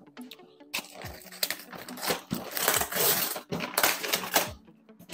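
Utility knife cutting along packing tape, then brown kraft paper being ripped and crumpled off a large box in a run of crackling tears, densest about halfway through.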